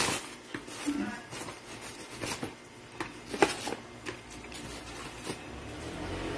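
Plastic wrap and cardboard packaging rustling and crinkling as boxes are handled, with sharp crackles every second or so. A low rumble builds near the end.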